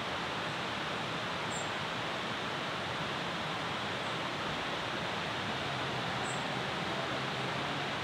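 Steady rushing of water, an even roar with no change in level, with a few short high chirps about a second and a half and six seconds in.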